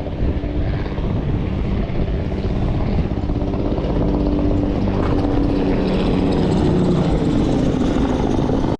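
A steady engine drone with a humming pitch, growing stronger partway through, over wind rumbling on the microphone.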